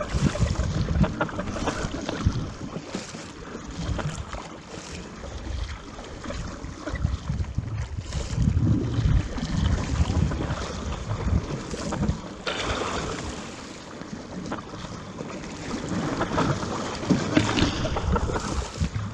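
Wind buffeting the microphone, swelling and fading in gusts, over the rush and splash of sea water around a paddled surfski.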